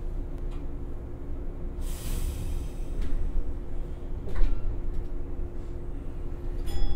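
Inside the lead car of a JR East 107 series electric train starting away from a station: a steady low rumble and hum, with a hiss of released brake air lasting about a second about two seconds in. A single knock follows about four seconds in, and a brief clink near the end.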